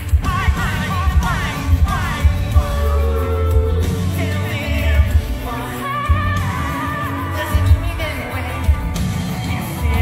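Live band playing with a male singer's sustained, wavering vocal over a heavy, steady bass.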